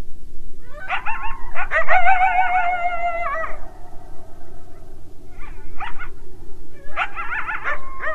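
Coyotes yipping and howling together: several overlapping, wavering calls in a burst about a second in, a short yip halfway, then another burst near the end.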